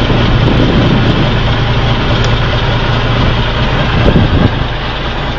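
A fishing boat's engine running steadily with a low, even drone.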